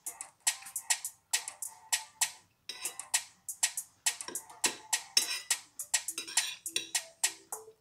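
Background music built on quick, sharp percussion hits at an even pace, with a few short pitched notes near the end.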